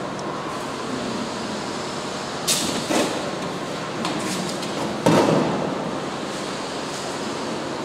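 Three sharp knocks over a steady background noise: two close together before the middle, and a louder one about two-thirds of the way through.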